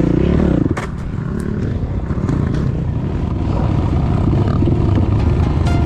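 Trail motorcycle engine revving up and down, then a sharp knock about a second in, after which it runs rough and low with clattering. Music comes in near the end.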